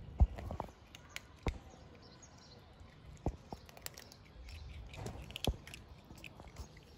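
A cat crunching dry kibble: irregular sharp crunches, loosely spaced, with one louder knock just after the start.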